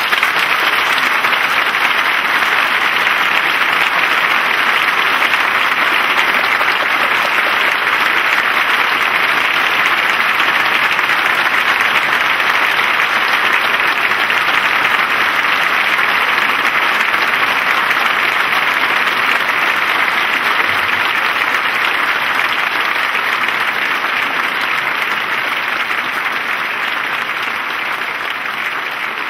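Large audience applauding: dense, steady clapping that eases off slightly near the end.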